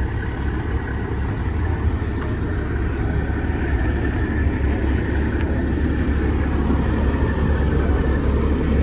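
Semi-truck diesel engine idling: a steady low rumble, getting a little louder near the end.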